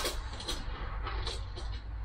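A few light knocks and rubbing sounds as the foam sponson is handled against the canoe's end, the sharpest at the very start and another about half a second in, over a steady low rumble.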